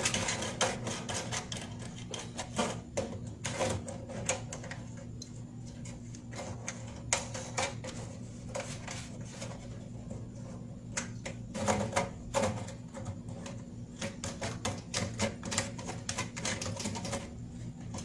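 Quick, irregular clicks and light taps of small switch parts and hand tools being worked, as push-button and selector switches are taken off a control panel door, over a steady low hum.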